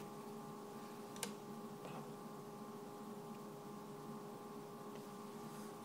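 Quiet room tone with a steady hum, broken by a couple of faint small clicks, one a little over a second in and a sharper one at the very end.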